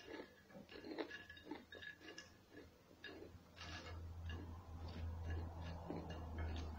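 Crunchy snack chips being chewed close to the microphone: a run of short, irregular crunches. A low hum comes in about halfway through.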